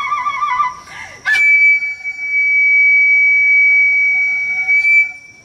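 Japanese transverse flute (yokobue) playing: quick wavering, trilled notes, then after a sharp attack about a second in, one long high piercing note held steady until it fades near the end.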